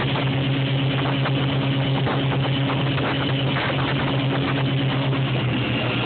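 Motorboat engine running with a steady low hum over a constant rushing noise.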